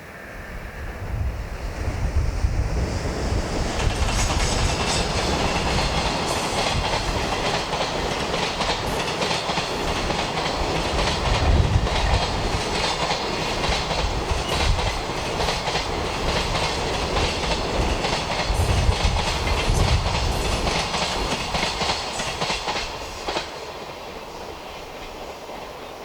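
A long container freight train hauled by an EH500 electric locomotive passing at speed, its wheels clattering in quick clicks over the rail joints. The sound swells over the first few seconds, stays loud while the wagons run by, and fades near the end.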